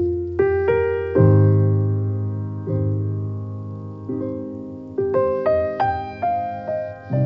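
Background piano music: a slow melody of single notes over low held notes, each note struck and fading away.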